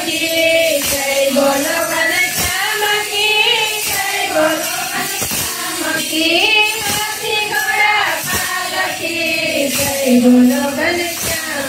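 Group of women singing a Hindu devotional bhajan together, with sharp claps keeping time roughly every three-quarters of a second.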